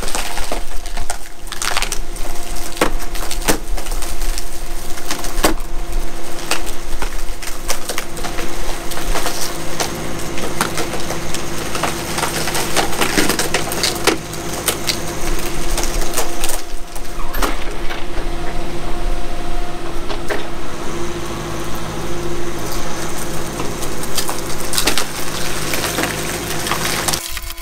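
Hydraulic cone screw splitter on a Kubota KX040 compact excavator boring into an oak log: the wood cracks and splinters again and again over the steady running of the excavator's engine. The sound cuts off abruptly near the end.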